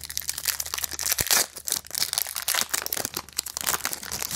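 Foil wrapper of a basketball trading-card pack crinkling and tearing as it is opened by hand: dense crackling, loudest a little over a second in.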